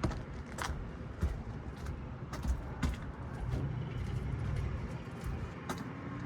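Scattered light clicks and taps from wiring and metal parts being handled, over a low steady rumble.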